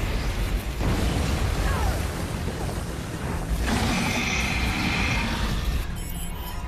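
Superpower-fight sound effects under a dramatic score: a dense, deep rumble with booms, and a sustained shrill effect for about two seconds in the middle. Near the end the rumble falls away and the sound thins out.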